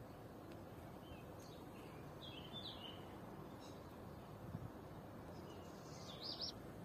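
A bird chirping in two short phrases of quick high notes, a couple of seconds in and again near the end, over faint steady outdoor background noise.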